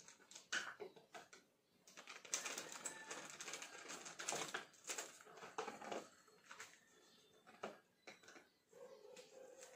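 Plastic bag of pancake mix crinkling and rustling as the powder is poured and shaken out into a plastic measuring cup, with many light clicks and taps; the rustling is busiest in the middle.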